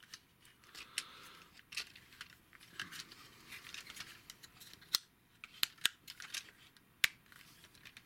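Plastic parts of a Generation Toy Gravity Builder Mixer Truck transforming robot figure clicking and rubbing as they are turned and pushed into place by hand. Small irregular clicks throughout, with a few sharper snaps in the second half.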